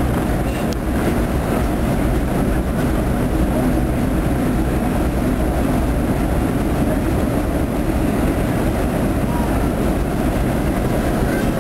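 A boat's engine running with a steady low rumble while the vessel moves along, with water churning along the hull.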